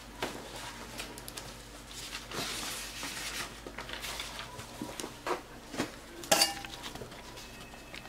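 Handling noise from a spiral notebook being moved and its pages turned: a stretch of paper rustling, then a few light clicks and knocks, the sharpest about six seconds in.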